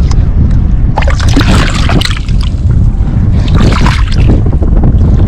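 Legs wading through shallow muddy water, with two spells of splashing, about a second in and again about three and a half seconds in, over a heavy low rumble of wind on the microphone.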